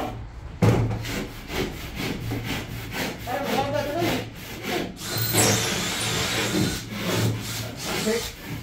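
A hand saw cutting gypsum plasterboard (13 mm GIB Fireline board) in rhythmic back-and-forth strokes, about three a second.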